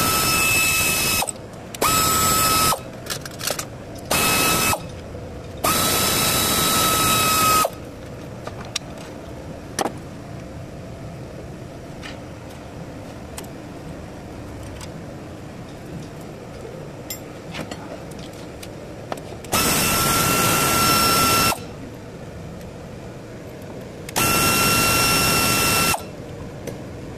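Cordless electric ratchet running in six short bursts on a camshaft phaser bolt, each a steady high motor whine that starts and stops abruptly. The longest runs come about six seconds in and near twenty seconds, with faint clicks of tools in the quiet gaps between.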